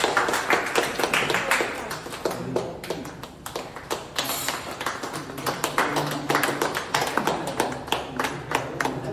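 A group of people clapping their hands repeatedly, with voices mixed in among the claps.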